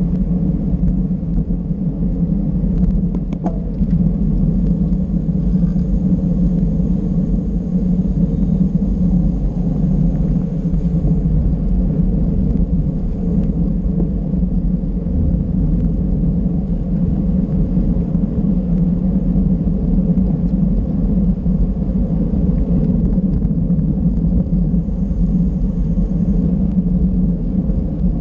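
Steady low rumble of wind and road noise from a bicycle ridden at race speed.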